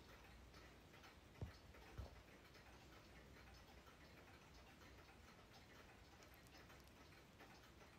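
A room full of wall, mantel and grandfather clocks ticking at once, their faint ticks overlapping out of step. Two soft thumps about a second and a half and two seconds in.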